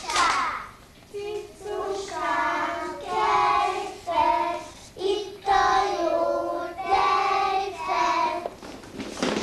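A group of young children singing a Hungarian singing-game song together, in short phrases of held notes with brief breaks between them; the singing stops shortly before the end.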